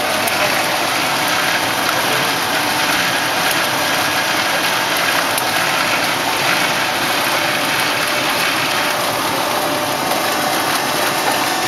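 Plaster panel production machinery running steadily: a continuous mechanical noise with no pauses or distinct strokes.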